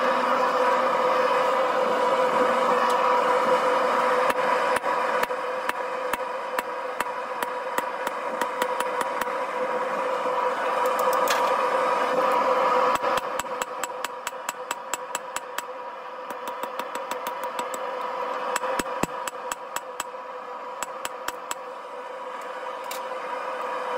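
Hammer blows on hot steel at an anvil, in runs of sharp strikes up to about four a second, over the steady roar and hum of a lit propane forge burner.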